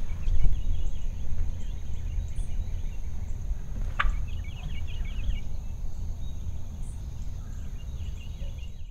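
Wild turkeys calling in the distance, with a short rattling gobble-like series of notes about four and a half seconds in, over small birds chirping and a low rumble on the microphone.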